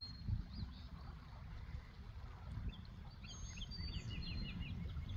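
Small birds chirping, with a quick run of short falling notes about three seconds in, over a low rumble of wind on the microphone.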